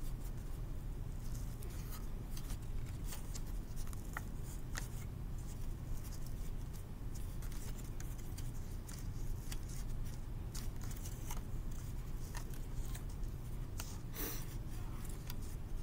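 Paper being folded and creased by hand: scattered light crackles and rustles over a steady low hum, with a longer rustle about 14 seconds in.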